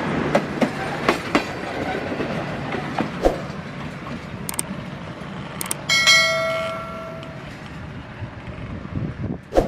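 Passenger train running on the rails, its wheels clicking rhythmically over rail joints for the first second or so, then a steady rumble. About six seconds in a ringing tone sounds and fades over a second and a half, and a sharp knock comes near the end.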